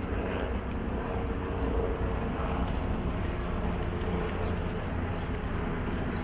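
Steady low outdoor background rumble, with a faint hum between about one and two seconds in.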